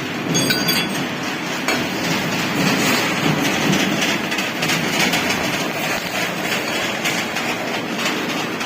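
Automatic TIG welding arc on an aluminium air-cylinder nut, giving a loud, steady, rough hiss; a few brief high tones sound about half a second in, as the arc strikes.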